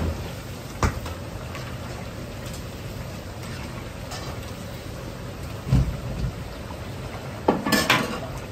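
Starch-coated potato pieces deep-frying in a large wok of oil: a steady sizzle of bubbling oil. A few metal knocks and clatters from the stirring ladle cut through it, a sharp one about a second in and a louder cluster near the end.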